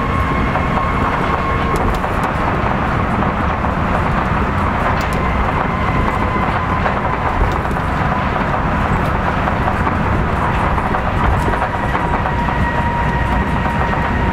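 Kitakyushu Monorail car, a rubber-tyred straddle-beam monorail, running at speed between stations, heard from inside the car: a steady rumble and hiss from the tyres on the beam, with a faint motor whine over it.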